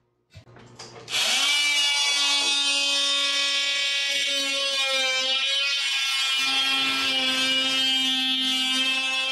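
Corded handheld power tool cutting through drywall in a ceiling: a steady, loud whine that starts about a second in, after a few faint clicks, and wavers in pitch around the middle as the blade bites.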